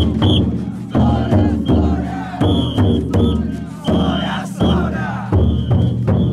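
Taikodai drum float's big drum being struck in a heavy, uneven beat, while a crowd of bearers shouts chants. Short, shrill whistle blasts cut in again and again.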